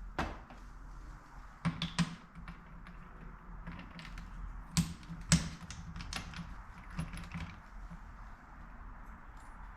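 Small metal transmission parts (gears, washers and C-clips) clicking and clinking as they are handled and fitted onto a Yamaha YZ125 gearbox shaft. Scattered sharp clicks, with a quick cluster about two seconds in and the loudest pair around five seconds in.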